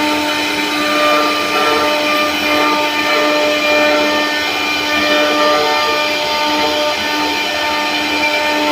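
CNC router spindle running steadily as it carves wood, a constant pitched whine over a hiss of cutting noise.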